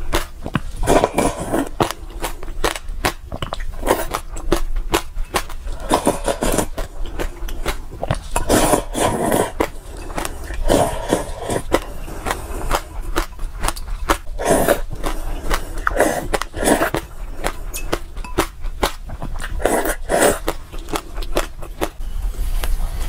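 Close-miked gulping and swallowing from a glass of iced drink, with many sharp clicks of ice cubes knocking against the glass.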